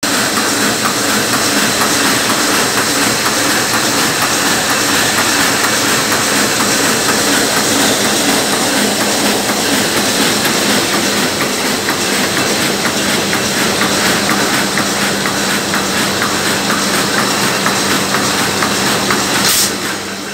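1988 Mitsubishi 1E-4 four-colour sheetfed offset press running with its sheet feeder working: a steady dense mechanical clatter over a constant hum and hiss. It drops in level about a second before the end.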